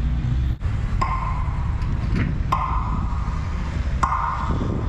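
Three short electronic beeps, about a second and a half apart, from a loudspeaker box on a tram-stop pole. Under them runs the steady low rumble of road traffic and wind.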